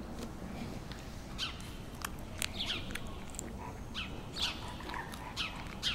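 Short, high animal chirps that fall in pitch, about eight of them at irregular spacing, over a steady low background hiss.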